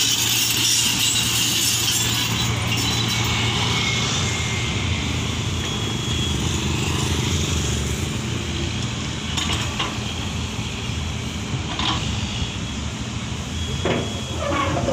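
Diesel engine of a Komatsu PC78US excavator running steadily with a constant low hum, and a few sharp metallic knocks near the end.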